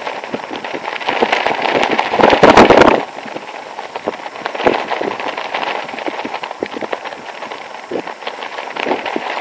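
Nylon jacket and trousers flapping and crackling in strong wind, with wind buffeting the microphone. The loudest gust ends abruptly about three seconds in, leaving lighter flapping with scattered sharp snaps.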